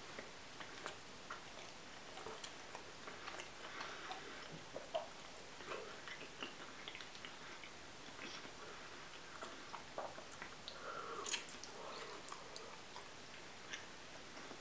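Faint chewing and biting of a mouthful of raw marzipan: scattered small wet mouth clicks and smacks, with a sharper click about three-quarters of the way in.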